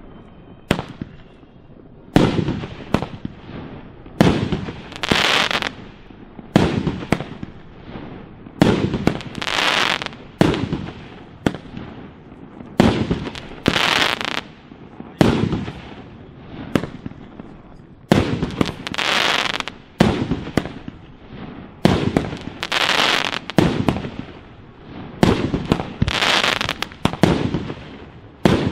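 A 1.2-inch 49-shot cake firework firing shot after shot, about one bang a second, some in quick pairs. Several bursts are followed by about a second of crackling from the crackling-effect stars.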